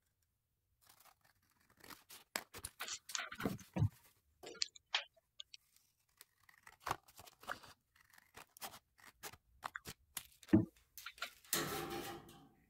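Scissors cutting a sheet of construction paper in short, irregular snips, with the paper crackling and rustling as it is handled. Near the end comes a louder, longer rustle of the paper.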